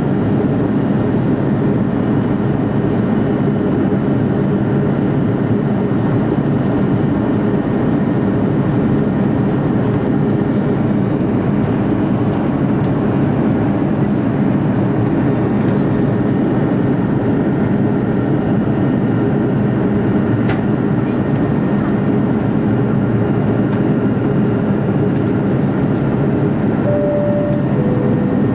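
Steady drone of an Airbus airliner's engines and slipstream heard inside the passenger cabin in flight. Near the end comes a two-note cabin chime, high then low.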